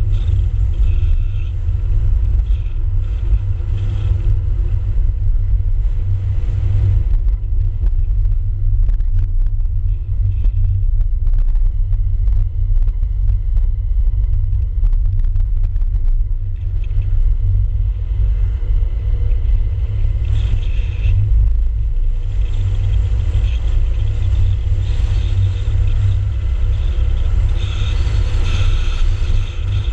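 A car driving along town roads, picked up by a GoPro mounted on the outside of the car: a loud, steady low rumble. A lighter hiss over it fades for about ten seconds in the middle, then comes back.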